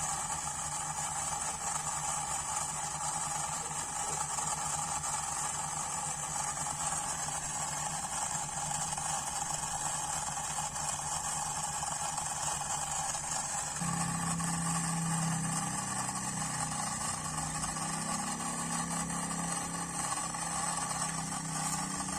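Miniature DIY model diesel generator running with a steady engine-like hum and hiss. About two-thirds of the way through, the low hum gets louder and fuller.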